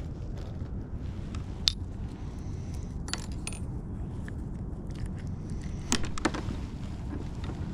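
A few sharp, light metallic clicks and clinks from fishing tackle as hands unhook and handle a caught crappie, over a low steady rumble.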